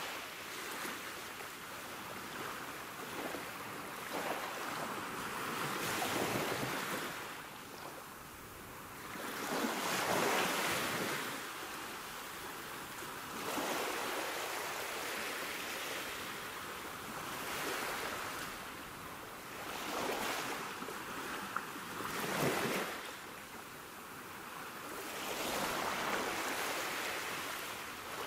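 Sea waves breaking and washing on the shore, a steady rush of surf that swells louder and fades back every few seconds.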